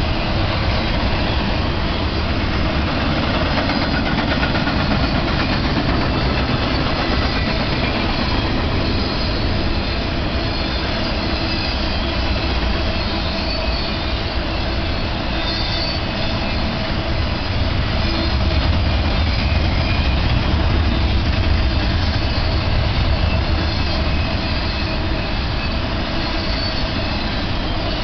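BNSF intermodal freight train's cars, loaded with trailers and double-stack containers, rolling past on steel wheels and rails, a continuous steady noise heaviest in the low range.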